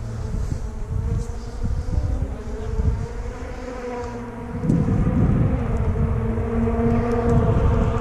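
Rally car engine revving hard in the distance on the gravel forest stage, its note getting louder about halfway through as the car approaches. Wind gusts on the microphone.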